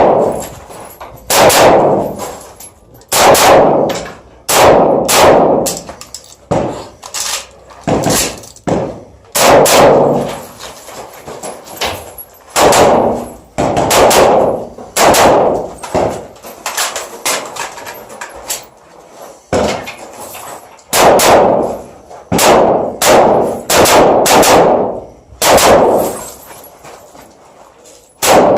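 Kalashnikov-pattern rifle fired in semi-auto during a timed stage. The shots come singly and in quick pairs, with short pauses between strings, and each has a ringing tail, much like bullets hitting steel targets.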